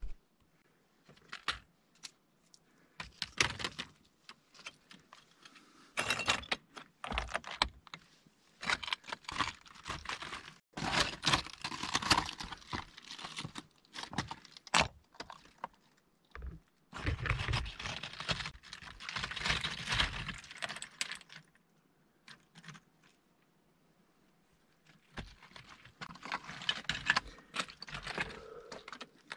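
Footsteps crunching over brittle, rubbly lava rock, with rock fragments clinking and scraping, in irregular bursts and a quiet pause about three-quarters of the way through.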